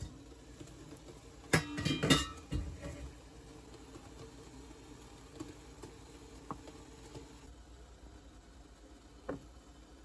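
Stainless steel pot and steamer clattering: a quick cluster of metal clanks and clinks about a second and a half in, then a few light single knocks.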